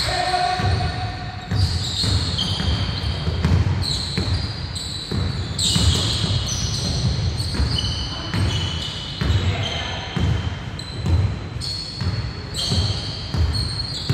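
A basketball bouncing on a hardwood gym floor with repeated thuds, mixed with short high squeaks of sneakers on the court, echoing in a large gym.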